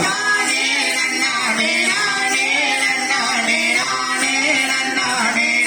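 Tamil devotional kummi folk song to Murugan: singing over musical accompaniment, with long held notes.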